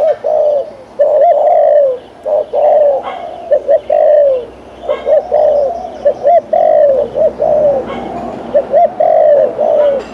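Spotted dove cooing continuously in repeated phrases. Each phrase has quick short notes and longer falling coos, with hardly a pause between phrases.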